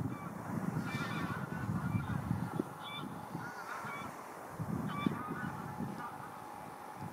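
Geese honking in short, repeated calls over a low rumble.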